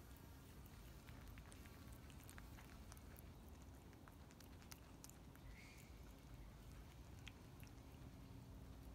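A young brushtail possum chewing a slice of bread, heard only as faint, scattered crunchy clicks over near-silent room tone.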